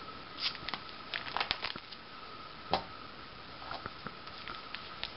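Plastic pocket pages of a trading-card binder album being turned by hand, giving quick crackly rustles and clicks with one sharper snap about halfway through. A faint steady high tone runs underneath.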